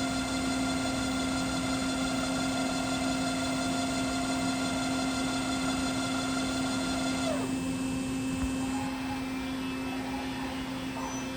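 Doosan DBC 130 horizontal boring and milling machine running under power: a steady low hum with a whine of several high tones above it. About seven seconds in, the whine cuts out and something winds down with a falling pitch, leaving the low hum running.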